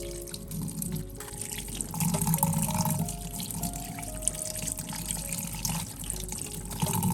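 Tap water running into a sink, splashing unevenly and loudest about two seconds in.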